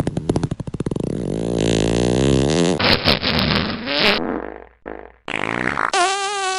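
A run of fart sound effects cut one after another: first a rapid flapping rattle, then a longer fart sliding in pitch. After brief spluttery bursts, a wavering, warbling one comes near the end.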